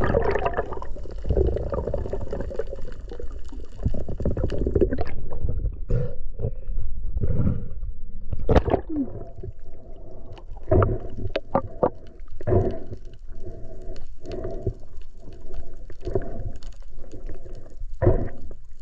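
Underwater sound of a freediver swimming, picked up by a GoPro in its housing: a constant low rumble of moving water, with many short knocks and clicks from about five seconds in.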